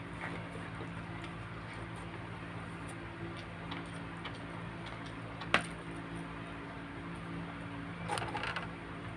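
Close-up eating sounds of a man chewing roast chicken and pulling the meat apart with his fingers, over a steady low hum. A single sharp click comes about five and a half seconds in, and a short noisy scuffle near the end.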